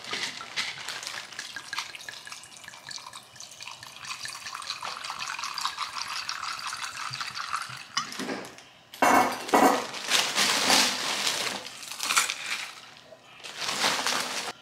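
Liquid pouring steadily from a glass bottle into a cup of ice for about eight seconds. After that come several loud crinkling bursts as a plastic bag is handled.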